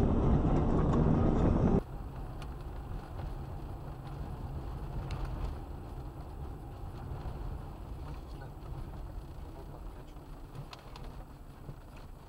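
Car cabin noise picked up by a dashcam microphone: a loud engine and road rumble cuts off suddenly about two seconds in, and a quieter, steady low engine and tyre hum follows, with a few faint clicks.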